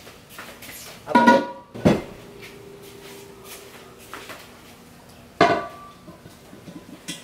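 Two-piece alloy car wheels clanking and ringing as they are set down on a concrete floor. There is a clatter a little over a second in, then a sharp knock whose metallic ring hangs on for about two seconds, and another clank about five and a half seconds in.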